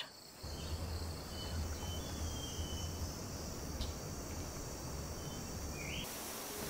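Rainforest ambience: a steady chorus of insects with a few faint, short bird notes and a brief rising chirp near the end. A low rumble sits under it for the first few seconds.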